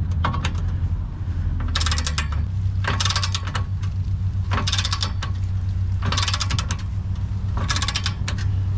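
A ratchet wrench being worked in short bursts of clicks, one burst about every second and a half, over background music with a steady bass.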